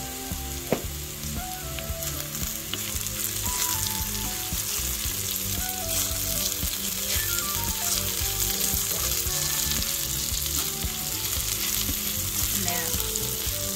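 Sliced okra and onions sizzling in olive oil in a small cast iron skillet on high heat, stirred and turned with a wooden spoon, with one sharp knock about a second in. The okra is nearly cooked down, most of its liquid cooked out and the seeds browning.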